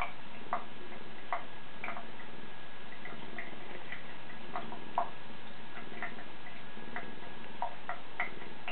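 Water dripping from a tap into a bathroom sink basin: small, irregularly spaced plinks, roughly one a second, with a few closer together near the end.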